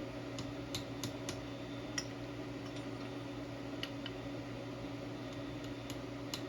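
A steady mechanical hum with several fixed low tones, with faint light ticks scattered irregularly through it.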